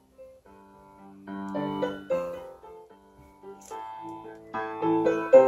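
Piano music: a melody of separate notes with chords, starting softly and growing louder toward the end.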